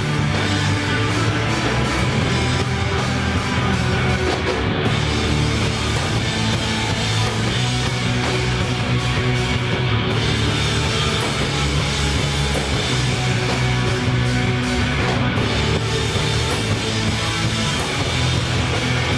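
Instrumental post-metal band playing live: electric guitars, bass guitar and drum kit in a loud, dense, steady wall of sound.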